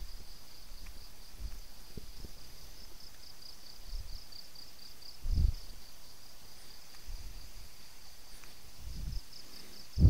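Insects chirring steadily in a high, pulsing buzz, with dull low thumps of footsteps on a path every second or two, the loudest about halfway through.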